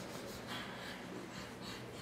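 Soft scuffing footsteps of sock feet on a tile floor, a few steps about half a second apart.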